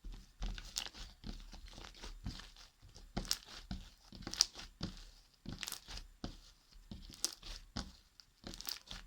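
Fluffy slime, with shaving foam mixed in, being squished and stretched by hand: irregular crackles and pops, several a second.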